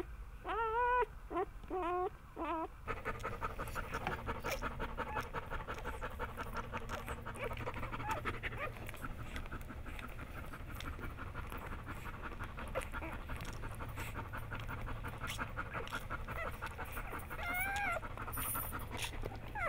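Newborn Bernese mountain dog puppies squealing in short high cries for about the first three seconds. Then the mother Bernese mountain dog pants rapidly and steadily during whelping, with another brief puppy cry near the end.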